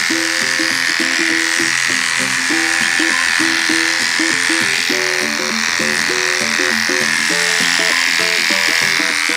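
Background music, a melody of short stepping notes, over the steady high hum of electric dog clippers shaving matted fur.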